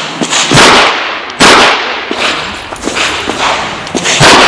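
Chiappa Rhino revolver firing during a competition stage: two sharp shots less than a second apart, then a third about three seconds later, with fainter cracks between them.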